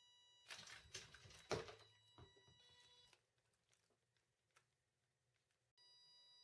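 Homemade robotic arm throwing a ball: a short burst of servo and mechanical clatter with one sharp knock about a second and a half in, then a few faint light ticks. A faint steady high electronic whine underlies it and stops about three seconds in.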